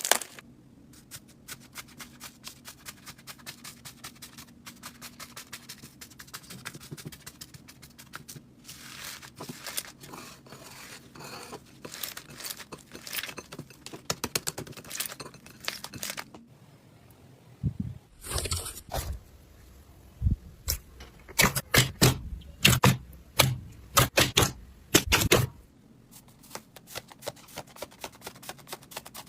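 Slime being handled and squeezed: a long run of rapid crackling clicks, with a louder stretch of sharp pops and snaps in the second half.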